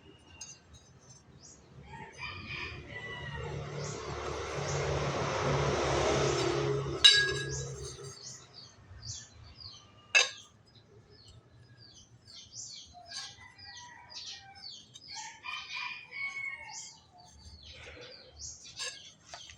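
Metalwork on a manual pipe notcher: a rasping noise that builds for about four seconds and ends in a sharp ringing metal clank, then a second clank about three seconds later. Birds chirp throughout.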